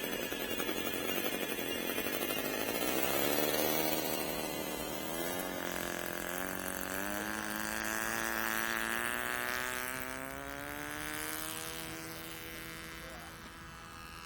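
Saito FA-60T four-stroke model airplane engine running, its pitch rising steadily for several seconds as it speeds up, then fading slightly toward the end. A broad rushing noise covers the first five seconds or so.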